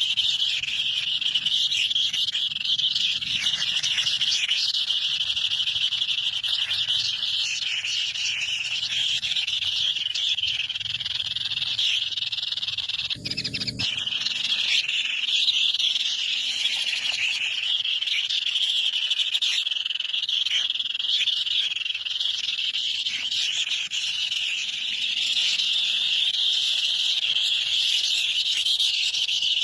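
A dense, continuous chorus of calling animals, a steady high-pitched trilling that drops out briefly about 13 seconds in, with a low thump at the break.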